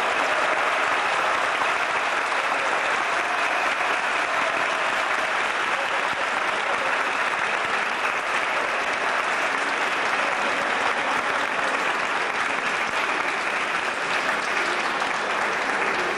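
Audience applauding steadily, a long unbroken round of clapping for a teacher's award.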